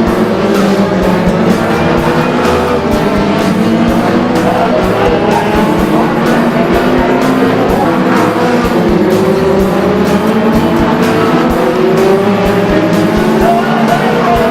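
Several race car engines running hard, their pitch gliding up and down as they rev and pass, mixed with background music that has a steady beat.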